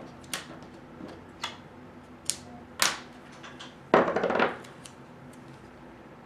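Hands working on an opened laptop's screen and plastic parts: a few sharp light clicks and taps, then a brief scratchy rasp about four seconds in, the loudest sound.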